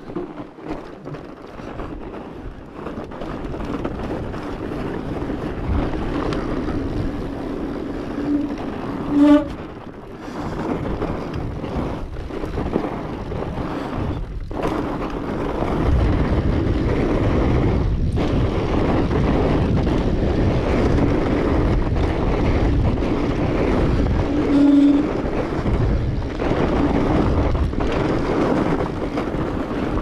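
Studded fat-bike tires rolling over packed snow, a continuous rough rolling noise mixed with wind buffeting the camera's microphone. The noise gets louder and heavier about sixteen seconds in. A brief louder whine comes about nine seconds in and again near twenty-five seconds.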